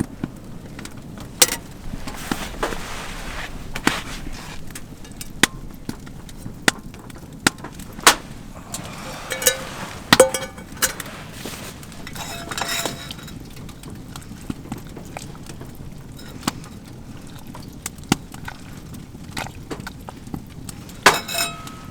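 Scattered clicks and knocks with a few ringing clinks, as of items being handled and set down.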